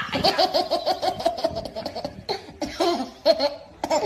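A baby's belly laugh: a fast run of short laughs, about seven a second, for two seconds, then a few shorter bursts of laughter.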